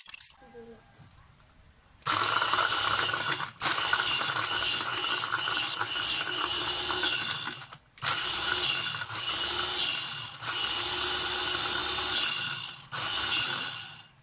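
Small electric food chopper blending avocado and milk, its motor switched on by pressing down on the top and run in five bursts of a few seconds each with brief pauses between.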